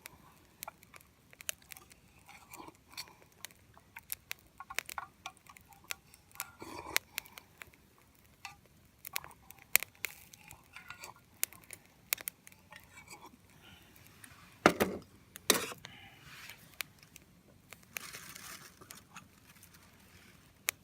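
Small wood fire crackling in a compact folding fire grill, with irregular sharp pops throughout and two louder knocks about fifteen seconds in.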